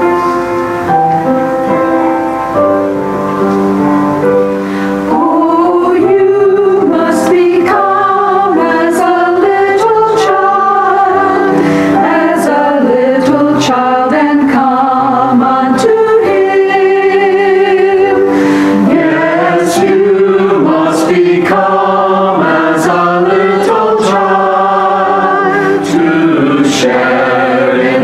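Church choir of mixed men's and women's voices singing a sacred choral piece in parts. The first few seconds are held instrumental chords, and the voices come in about five seconds in.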